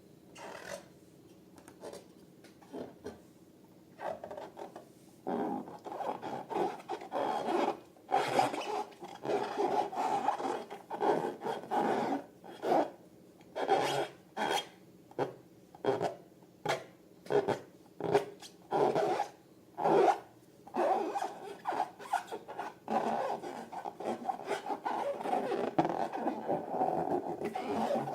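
Short rubbing and scraping strokes, mostly about one a second, sparse and faint for the first few seconds and then denser and steadier near the end.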